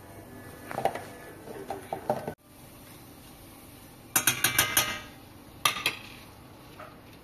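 A metal spoon and a spatula clinking and scraping against a stainless steel frying pan as tomato paste is knocked off the spoon into the pan. Scattered clinks a second or two in, then a quick run of about six clinks around four seconds in, and one more near six seconds.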